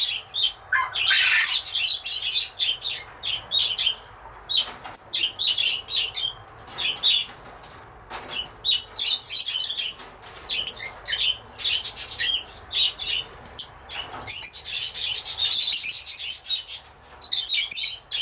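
A group of lovebirds chirping and chattering in rapid, high-pitched bursts, with a few denser spells of calling.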